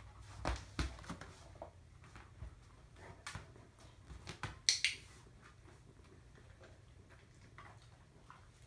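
Scattered light clicks and taps of a large dog's paws and claws stepping on and off an inflatable rubber balance disc and the floor, with one louder sharp click about five seconds in.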